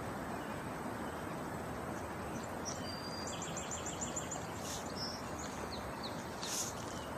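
Steady outdoor background noise, with a bird singing a short run of quick, high repeated notes in the middle.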